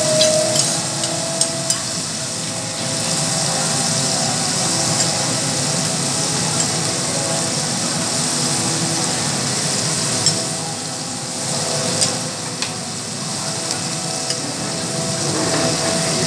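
Food sizzling steadily on a teppanyaki griddle, with a few sharp clicks of metal spatulas against the hot plate.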